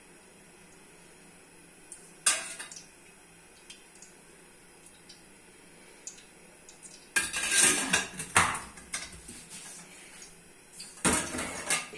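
Metal pots, pans and utensils clanking and clattering in separate bouts: a single clank about two seconds in, a longer clatter about seven seconds in, and another near the end.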